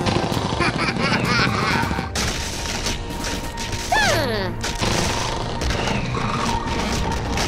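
Crashing and rumbling of a cruise ship ploughing through waterfront buildings, mixed with music and people crying out. A sound falls in pitch about four seconds in.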